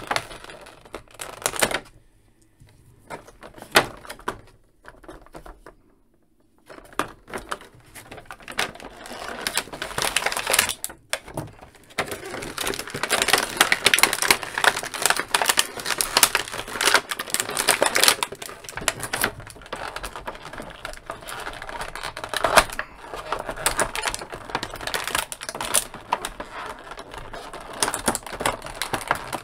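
Clear plastic blister packaging crinkling, crackling and clicking as it is handled and bent while an action figure is freed from it. It is briefly quiet a couple of seconds in, and the crinkling runs almost without a break through the second half.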